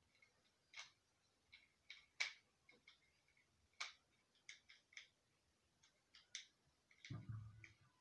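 Faint, irregular small clicks and ticks of a plastic light switch and its wires being handled and worked on, with a soft low bump about seven seconds in.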